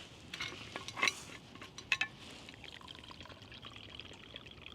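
Coffee being poured into a cup, with a few light clinks and taps of the cup and lid in the first two seconds, then a faint steady trickle.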